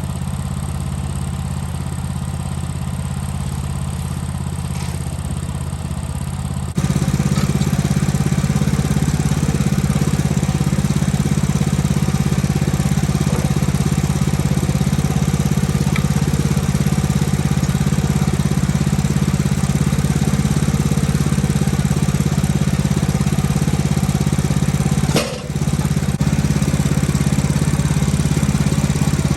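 Sawmill engine running steadily, rising to a higher, louder pitch about seven seconds in and holding there, with one brief dip near the end.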